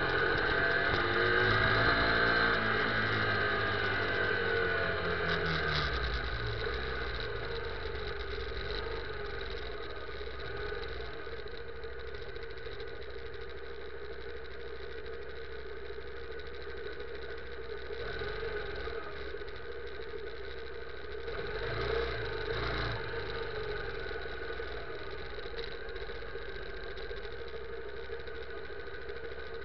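Motorcycle engine slowing down, its note dropping over the first few seconds, then idling steadily at a standstill. There is a brief rise in engine sound about 22 seconds in.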